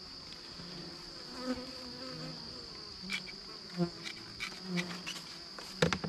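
Honey bees buzzing around the hives, several flying close past in short buzzes, over a steady high-pitched insect chorus. A few sharp clicks of the hive fittings being handled, the loudest near the end.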